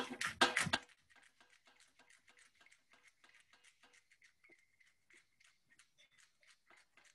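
A few words at the very start, then a hand-twisted pepper mill grinding peppercorns: a faint, quick run of crunching clicks, several a second.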